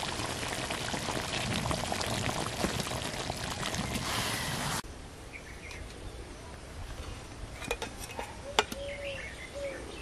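Egg-chicken curry bubbling and sizzling in a metal karahi just off the fire, a dense crackling hiss that cuts off suddenly about five seconds in. Then a few sharp clinks of a steel ladle on the pan as the curry is served, and near the end short repeated bird calls.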